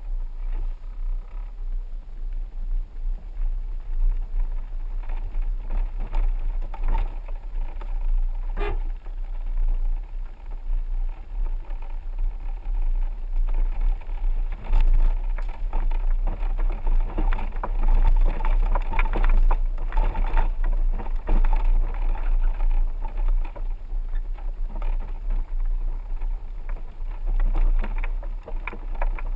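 A 4x4 rolling slowly over a rough dirt road: a steady low rumble of engine and tyres, with loose rattles and knocks from bumps.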